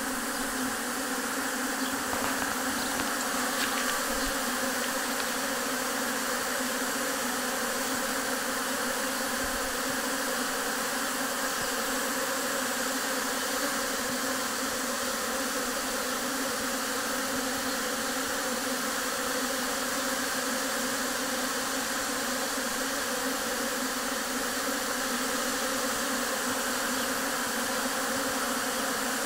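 Steady hum of a great many honeybees flying in front of their hives: a mass orientation flight after a spell of cool weather.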